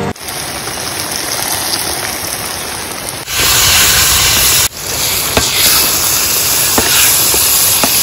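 Steady loud hiss in three spliced stretches. It breaks off abruptly a few seconds in and again near the middle, and the later stretches are louder and brighter, with a few faint clicks.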